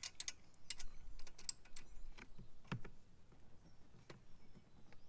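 Irregular metallic clicks and taps of a combination wrench on the oil drain plug of a Champion 2800 inverter generator as the plug is tightened, with one heavier knock about three seconds in.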